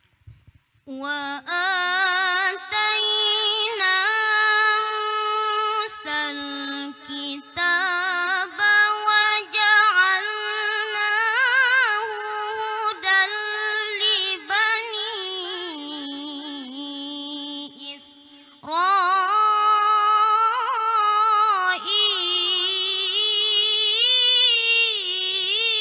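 A boy reciting the Quran in the melodic tilawah style into a microphone: one high voice holding long notes ornamented with vibrato and melisma. It begins about a second in and breaks briefly for breath about 18 seconds in.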